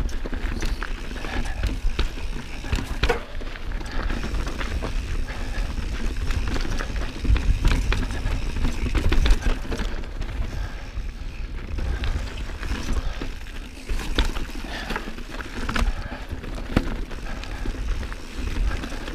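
Mountain bike (a 2019 Santa Cruz Bronson) riding a sandy, rocky dirt trail: tyres running over loose ground under a low rumble, with frequent sharp clicks and rattles from the bike over bumps, heaviest about halfway through.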